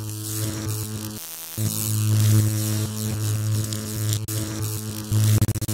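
Electric buzzing hum with crackle, a sound effect for an animated logo sting. It cuts out briefly about a second in and stutters on and off near the end.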